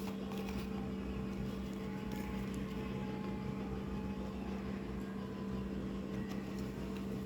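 Steady mechanical hum holding two constant tones, with a few faint ticks over it.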